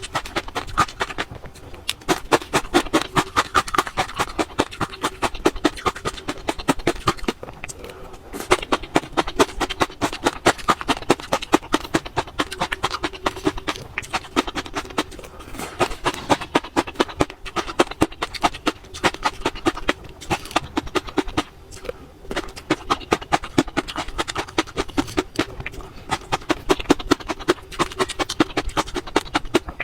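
Close-miked eating: rapid, crisp crunching and chewing clicks that go on almost without a break, in mouth-sound style.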